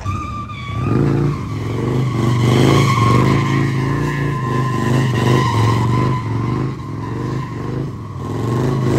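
A Harley-Davidson motorcycle's V-twin engine held at high revs while its rear tyre spins and squeals, rising to full noise about a second in and dipping briefly near the end.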